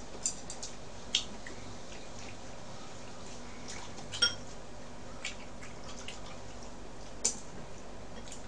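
Eating at a table: a few light clicks and taps of metal chopsticks and a spoon against bowls and a pan, one with a short ring about four seconds in, over a steady low hiss.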